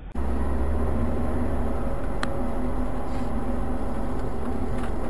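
Car engine and road noise heard from inside the car: a steady low drone under tyre hiss as it drives on a wet road, with one sharp click about two seconds in.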